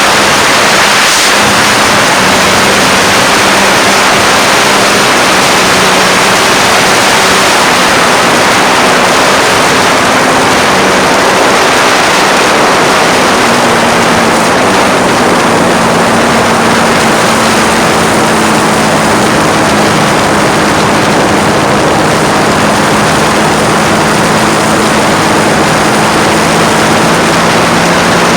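Triumph Street Triple's 675 cc three-cylinder engine running at a fairly steady speed, its note faint under a loud, even rush of wind roar on a phone microphone.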